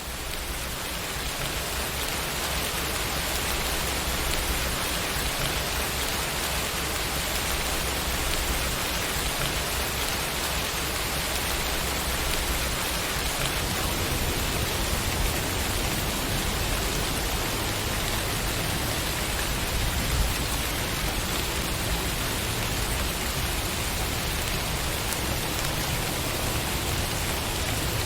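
Steady rain falling, a dense even patter that fades in over the first couple of seconds.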